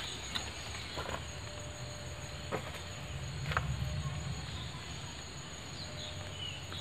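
Crickets chirring in a steady high drone, with a few faint clicks scattered through it.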